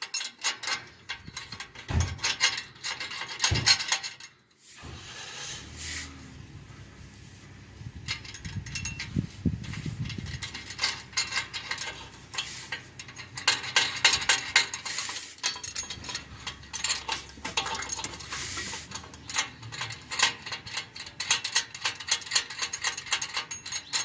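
Metal parts clinking and rattling by hand as the exhaust downpipe's bracing clamp and its bolts are fitted, in quick irregular clicks. A low handling rumble takes over for several seconds in the middle before the clinking resumes.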